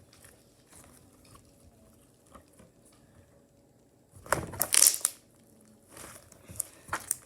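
Homemade slime squeezed in the hands until trapped air pops out: after a few quiet seconds, a loud, crackly popping burst about four seconds in that lasts under a second, then a few small clicks near the end.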